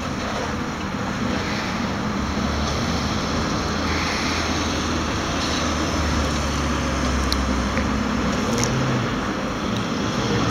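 Steady background noise: a low rumble under an even hiss, swelling slightly in the middle.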